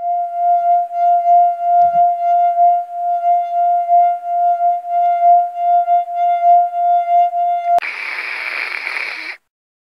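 A single held high note with overtones, pulsing in loudness about three times a second. About eight seconds in it cuts off suddenly into a loud burst of static-like hiss that lasts about a second and a half, then stops.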